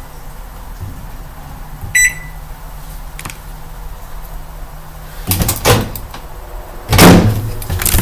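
A single short electronic beep from a microwave oven's keypad about two seconds in, over a low steady hum. Near the end come two loud, short bursts of bumping and rustling.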